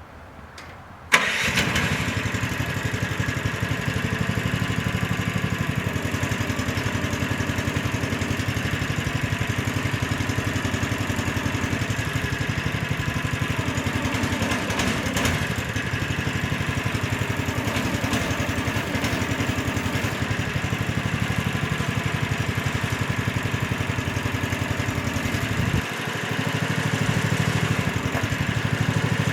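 AGT Industrial MX12R mini excavator's engine starting about a second in, then running steadily. A few seconds before the end it briefly dips, then runs somewhat louder.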